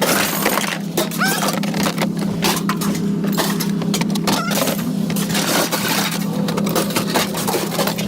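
Scrap metal clanking and clattering in a quick run of knocks and clinks, over a steady engine hum.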